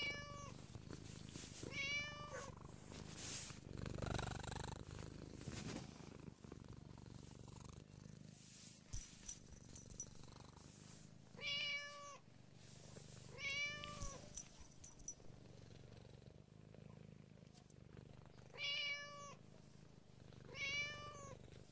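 Seal point Siamese cat meowing six times, in three pairs about two seconds apart, each meow short and rising then falling in pitch. Between the meows it purrs steadily while being stroked.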